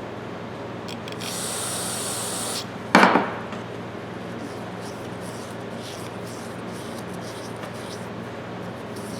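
An aerosol can of carb cleaner sprayed in one short hiss lasting about a second, followed a moment later by a sharp knock, the loudest sound, and then faint rubbing and scrubbing of parts.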